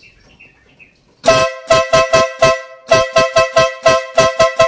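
Motorcycle compact horn sounding in a rapid string of short two-tone beeps, about four or five a second, starting about a second in, with a short break partway.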